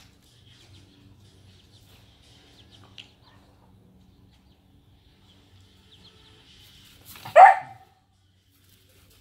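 A Siberian husky puppy gives a single loud bark about seven seconds in. Before it, chicks peep faintly and thinly.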